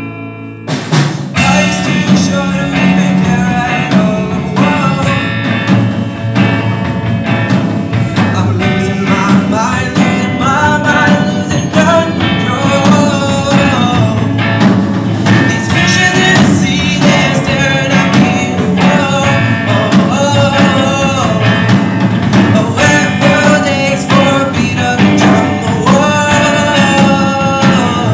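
A rock song with guitar and band accompaniment, the music growing loud about a second in. A voice sings the melody from about nine seconds in.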